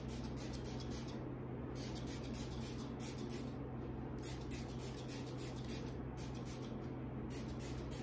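Small pump spray bottle misting repeatedly, in quick runs of short hisses, onto hair.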